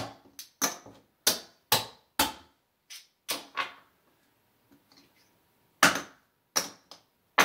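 Casino chips clacking against one another as they are picked up off a craps table layout by hand: about a dozen sharp clicks, in quick groups, with a pause of a second or two near the middle.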